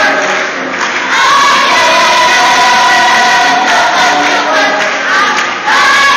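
Mixed-voice gospel choir singing loudly in full harmony, holding long chords. It dips briefly about half a second in and again just before the end, each time coming back with a new loud chord.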